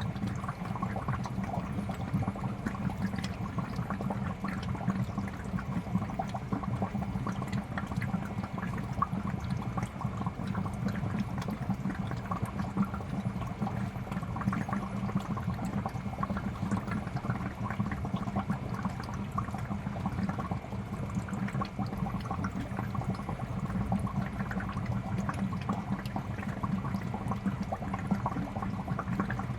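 Aquarium air bubbler running steadily: continuous bubbling and gurgling of water, with a low hum underneath.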